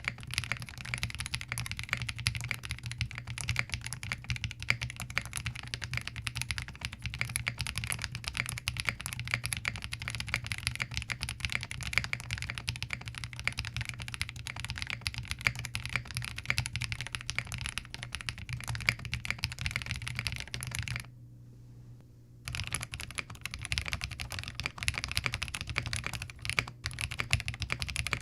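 Typing on a Zoom TKL mechanical keyboard with Novelkeys Cream linear switches: a continuous stream of key clacks that stops for about a second and a half about three quarters of the way through, then resumes.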